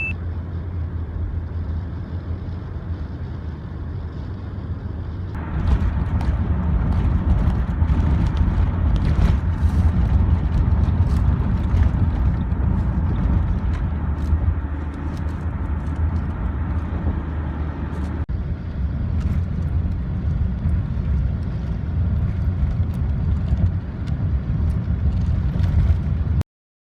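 Steady low road and engine rumble heard from inside a moving vehicle, with faint ticks and rattles. It grows louder about five seconds in and cuts off abruptly near the end.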